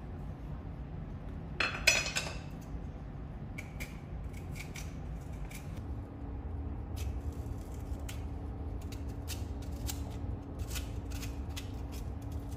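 Zucchini being trimmed and cored by hand: many short, sharp scraping and snipping sounds, with a brief louder rustle about two seconds in. A low steady hum comes in about halfway.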